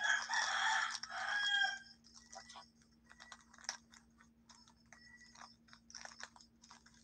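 A rooster crowing once, a loud drawn-out call lasting about two seconds. It is followed by faint scattered clicks over a steady low hum.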